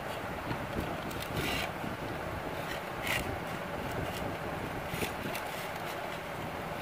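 A few brief soft rustles and scrapes as hands fold and roll a thin spring roll pastry wrapper on a tray, over a steady background hiss.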